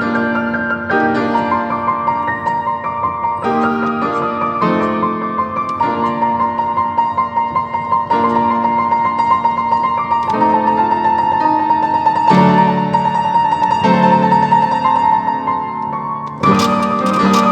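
Solo piano playing a restless passage: chords struck about once a second under a sustained, repeated high melody line, with a louder new chord near the end.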